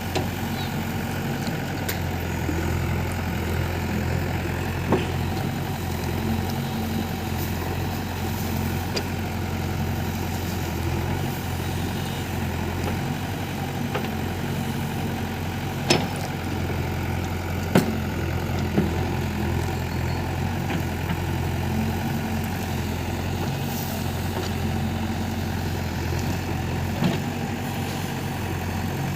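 JCB 3DX backhoe loader's diesel engine running steadily at a constant speed, with a few short sharp knocks scattered through.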